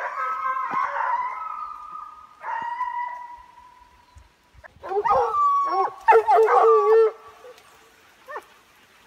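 Pack of scent hounds baying on a boar's trail. Long drawn-out howls come in the first few seconds, then several voices give tongue over one another, with one short cry near the end.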